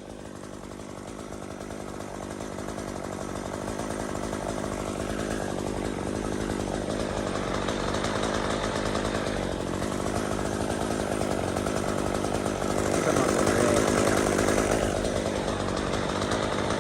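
Chainsaw running steadily, getting gradually louder and loudest about thirteen seconds in.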